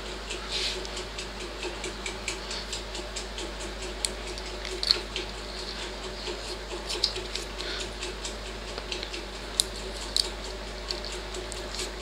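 Stiff white motor-winding insulating paper being wrapped by hand around a magnetron's terminal plug: irregular crinkling and rustling with a few sharper clicks, over a faint steady hum.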